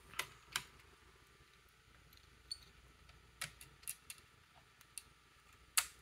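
Scattered small clicks of a Wi-Fi card being removed from a Lenovo ThinkPad W541 laptop's card slot: about eight faint snaps and taps, the sharpest one near the end.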